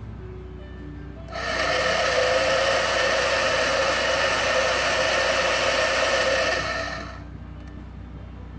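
Chicago Electric portable band saw running with no load. It starts abruptly about a second in, runs steadily for about six seconds, then winds down.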